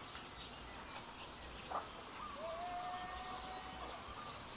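Small birds chirping faintly in the background, with a short sharp sound a little under two seconds in, followed by a faint, level, drawn-out call lasting about a second and a half.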